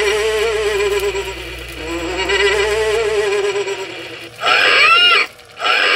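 Animated Halloween scarecrow's electronic sound played through a small buzzy speaker: a long wavering moan-like tone for about four seconds, then two short calls near the end that swoop up and down in pitch.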